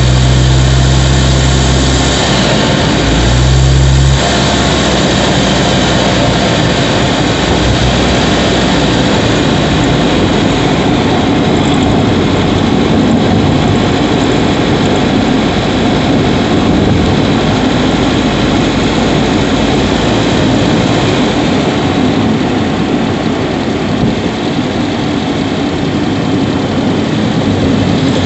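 Subaru Levorg 1.6GT-S's 1.6-litre turbocharged flat-four running while driving, heard from inside the engine bay near the intake. A strong low steady note drops away about four seconds in, leaving a broad, even engine and road noise.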